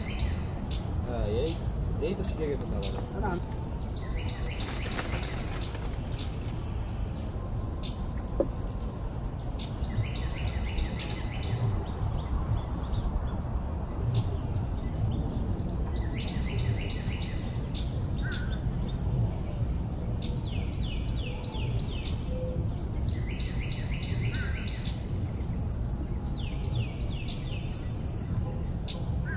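A continuous high-pitched insect drone, with short chirping bursts every few seconds, over a steady low rumble.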